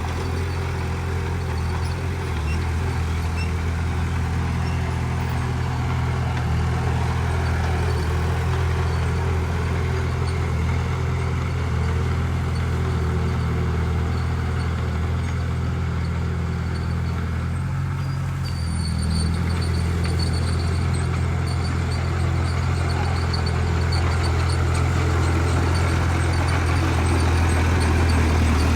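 Heavy diesel engine of earthmoving machinery running steadily with a deep, even hum. The note dips briefly about two-thirds of the way through, then picks up again and grows a little louder near the end.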